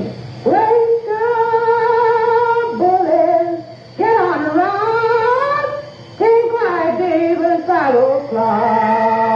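A single voice singing slow, held notes with vibrato, sliding up and down between them in phrases with short breaks.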